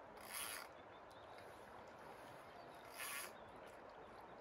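Faint steady rush of river water, with two short hissing bursts, one about half a second in and one about three seconds in.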